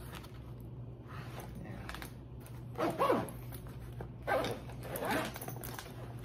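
A dog barking a few short barks, each falling in pitch, starting about three seconds in.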